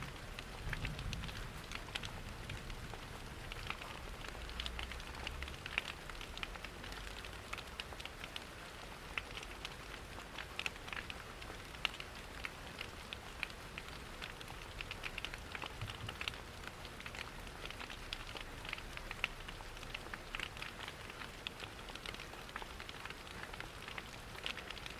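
Steady rain pattering, with a wood fire crackling in many small sharp ticks.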